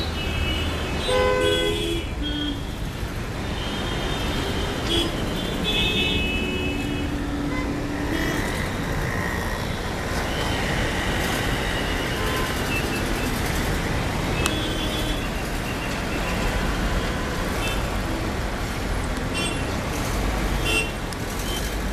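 Ride on a two-wheeler through city traffic: a steady engine and road rumble, with vehicle horns honking briefly several times.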